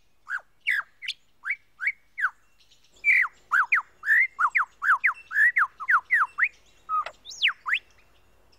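Superb lyrebird singing: a series of loud, clear whistled notes, most sliding downward. They come spaced out at first, then in a quick run of about three or four a second from about three seconds in, with a high note sweeping up and down near the end.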